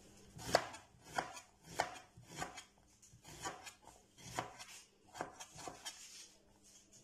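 Kitchen knife slicing a red onion into thin strips on a plastic cutting board: a steady run of light knife taps on the board, about one every half second or so.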